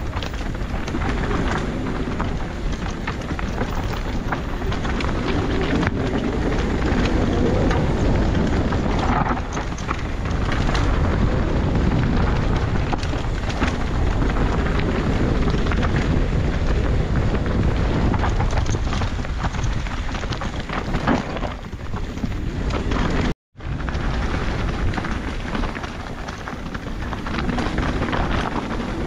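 A mountain bike riding a dirt singletrack: wind buffets the camera microphone over a steady rumble of tyres on dirt and stones, with frequent clicks and knocks from the bike rattling over the ground. The sound drops out for a moment about two-thirds of the way through.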